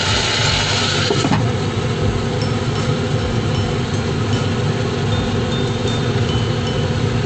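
Saucepan of chicken wings boiling steadily, with a clink about a second in as the glass lid is set on, after which the hiss grows softer.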